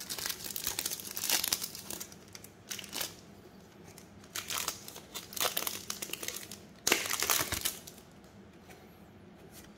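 Plastic wrappers of trading card packs crinkling as they are handled and crumpled, in several bursts with short pauses between. The loudest bursts come near the start and about seven seconds in.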